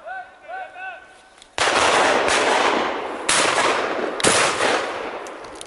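Three shotgun shots, the first about a second and a half in and the others close after, each followed by a long rolling echo that dies away slowly.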